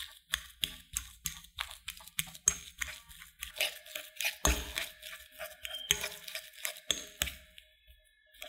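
Metal fork mashing boiled potatoes in a glass bowl: quick repeated strokes, about three a second, the fork clinking against the glass amid soft squashing. The strokes stop about a second before the end.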